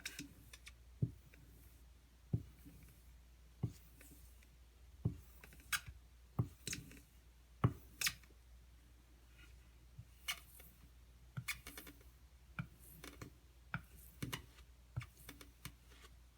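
Light, irregular clicks and taps of a knife being worked on a leather strop loaded with white compound, about one a second at first and closer together in the second half.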